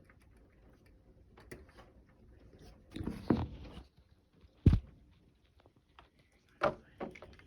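A few close knocks and rustles, like something being handled near the microphone: a rustling burst a few seconds in, then a sharp low thump, and another short knock near the end.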